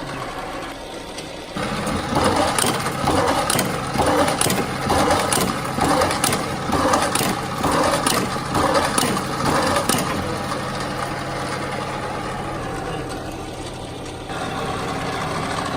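Electric high-speed paper hole drill starting up about a second and a half in, then working through a series of regular drilling strokes, about one a second, for some eight seconds before running on more steadily.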